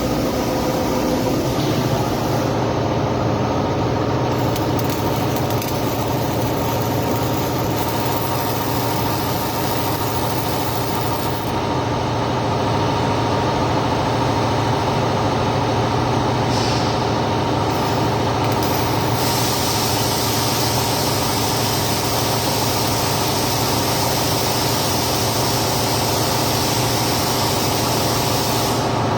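A cobot arc-welding a sample joint: a steady hiss and crackle of the welding arc over a constant machine hum. The hiss grows brighter about two-thirds of the way through.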